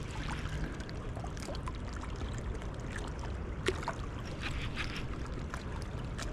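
Steady rushing of a high, flooded river's current, with a few faint clicks.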